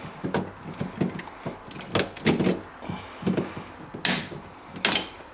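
Snips and hands working at a fridge's aluminium evaporator and its plastic-sheathed wiring: a string of small clicks and knocks, with two sharp, hissing snaps about four and five seconds in.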